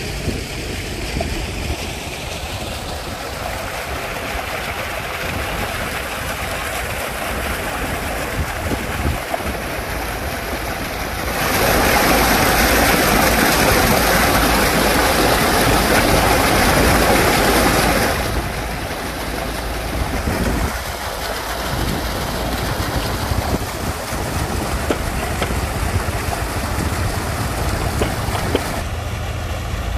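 Muddy water and pumped sand slurry pouring out of pipes, a steady rushing that grows much louder for about six seconds in the middle, then drops back.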